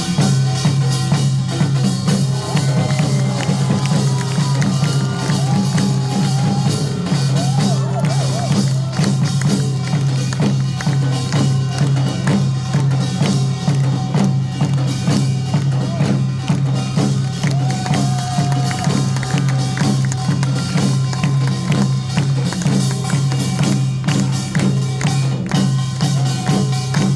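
Loud amplified music with a dense, steady beat and a continuous low bass line, a melody wavering over it early on.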